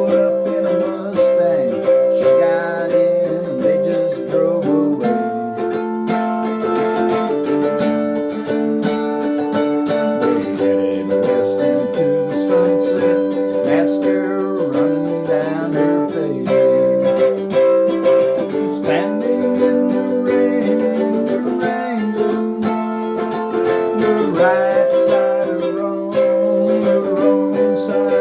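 Homemade cigar box mandolin playing an instrumental break, plucked strings sounding held chords that change every few seconds.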